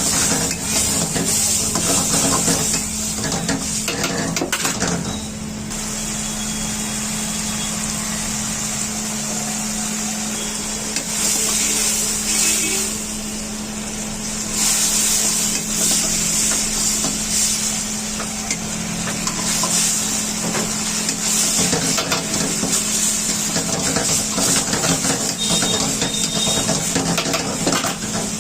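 Chicken chili frying and sizzling in a wok while a metal ladle stirs and scrapes against the pan, with clinks and knocks throughout. The sizzle swells and fades in waves over a steady low hum.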